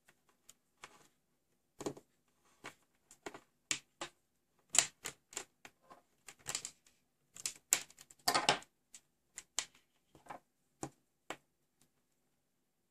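Irregular clicks and rustles of insulated wires and crocodile-clip test leads being handled, a dozen or so short sharp clicks spread unevenly, with a slightly longer scrape near the middle.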